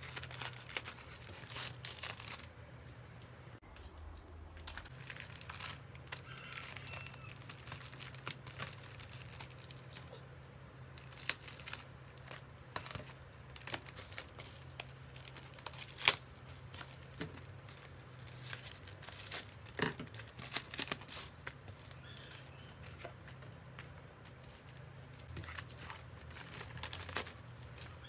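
White plastic bubble mailers rustling and crinkling as they are handled, slid and stacked on a desk, with a single sharp tap about halfway through.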